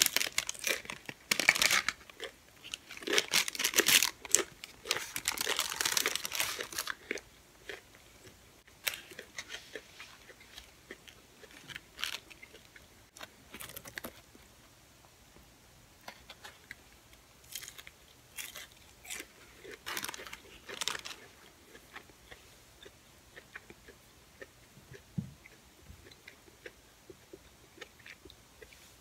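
Close-up crunching and chewing of a crispy deep-fried taco, loud and dense for the first several seconds, with some crinkling of its paper wrapper. After that the chewing turns quieter, with scattered soft crunches and clicks.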